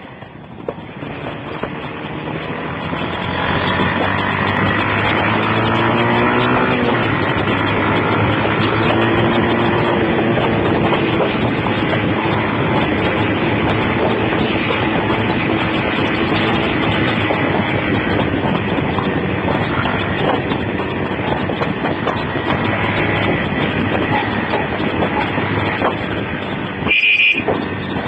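Wind rushing over a phone microphone on a moving motorcycle, with the engine note rising as it picks up speed a few seconds in. A brief high beep sounds near the end.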